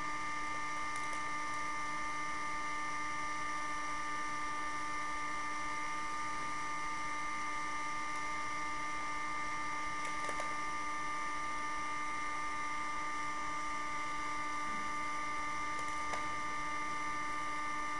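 Electric heat gun running steadily on high, a constant whining hum from its fan motor over the rush of hot air, while it heats a circuit board to melt the lead-tin solder. A couple of faint ticks are heard in the middle and near the end.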